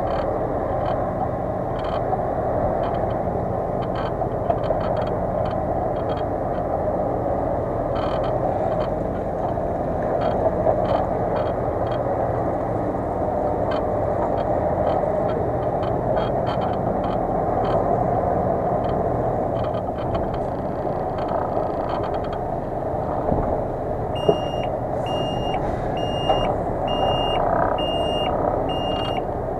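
MAN 26.403 truck's diesel engine running steadily as the truck reverses slowly over dirt, with light crackles from the ground under the tyres. About three-quarters of the way through, a reversing alarm starts beeping about once a second.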